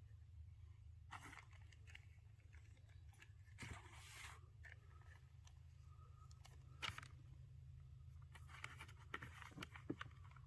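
Quiet scraping and rustling with a few sharp clicks, over a steady low hum: a loud scrape about four seconds in, a click near seven seconds, and a run of scrapes and clicks near the end.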